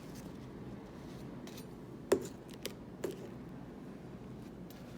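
Three light clicks of a utensil being handled while mayonnaise is spread for a sandwich, the loudest about two seconds in, over a faint steady hum.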